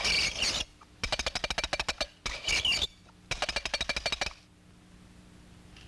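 Rapid wooden clattering in several quick bursts with short pauses between: a cartoon sound effect for a horse's hooves scrambling about. It stops a little after four seconds in.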